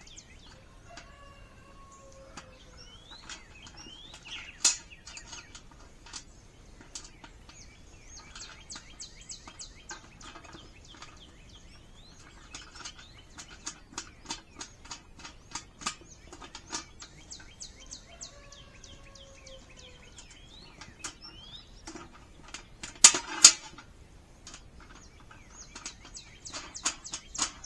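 Irregular small metal clicks and clinks from screws, wing nuts and metal raised-bed panels being fitted together, with a few louder clanks. Birds chirp in the background.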